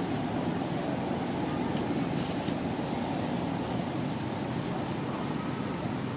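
Steady outdoor background noise, with a few short high bird chirps about two to three seconds in.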